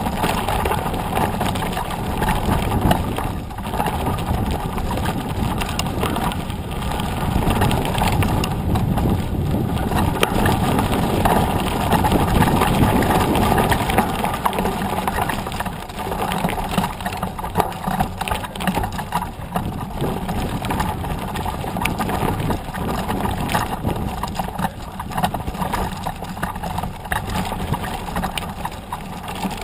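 Mountain bike ridden over gravel and grass tracks: the knobby tyres roll over the rough ground, picked up by a camera mounted right beside the front wheel, with a steady rush of noise and many small rattles and clicks from the bumps.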